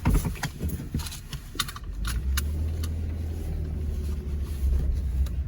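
A thump and a few sharp clicks, then from about two seconds in a car engine running with a steady low hum.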